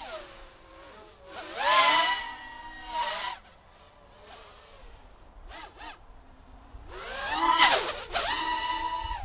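Racing quadcopter's Air2205 2000kv brushless motors spinning 5-inch three-blade props, whining with a pitch that rises and falls with the throttle. Two loud throttle bursts, one about two seconds in and one near the end, with a fainter whine in between.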